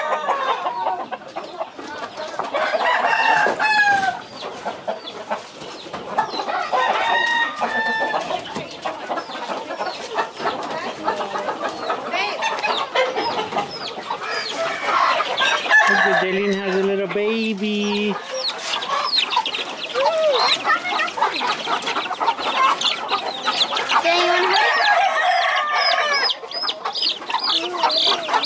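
Many caged roosters and hens clucking and crowing, with one long, low, level call about halfway through. Quick high peeping near the end, from a young chick being handled.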